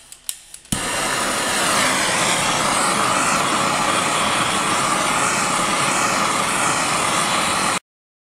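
A few sharp clicks, then a handheld propane torch lights under a second in and burns with a steady hiss, heating a steel part to expand its bore a few thousandths for a shrink fit. The torch sound cuts off suddenly near the end.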